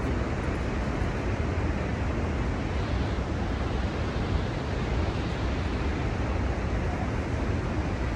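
Steady roar of rushing water from the Rhine Falls waterfall, with wind rumbling on the microphone.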